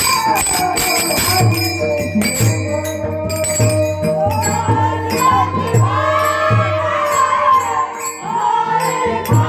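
Devotional bhajan with jingling metal percussion and a drum beating about once a second. A voice comes in singing about halfway through.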